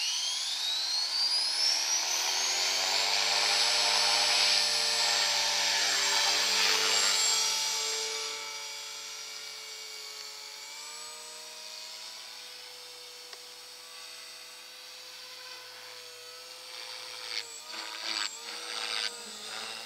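Thunder Tiger Mini Titan E325 V2 flybarless electric RC helicopter finishing its spool-up, its motor and gear whine rising in pitch for the first few seconds, then holding steady and loud. After about eight seconds it is flying, and the whine is steady and fainter, wavering in pitch near the end as it manoeuvres.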